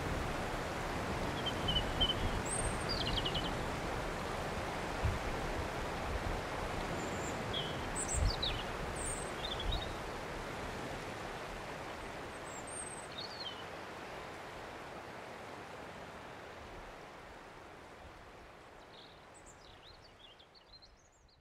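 Outdoor ambience: a steady rushing hiss with scattered short, high bird chirps, gradually fading away.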